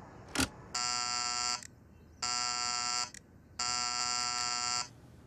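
A click, then an electric doorbell buzzer rung three times in quick succession: three harsh, even buzzes, the last one the longest.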